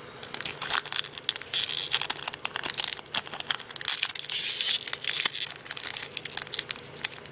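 Foil booster-pack wrapper crinkling and crackling as it is pulled open by hand. The crackles come densest about two seconds in and again around four and a half seconds in.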